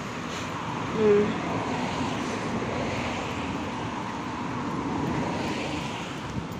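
Road traffic on a city street: a steady rush that swells and eases as vehicles pass. A brief pitched note sounds about a second in.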